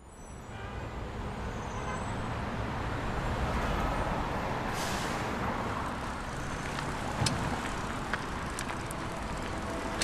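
Steady low rumble of outdoor background noise that fades in at the start, with a short hiss about five seconds in and a few sharp clicks later.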